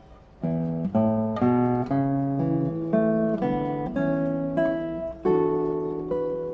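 Acoustic guitar music: after a fading chord, plucked notes and chords pick up about half a second in and go on as a melodic run.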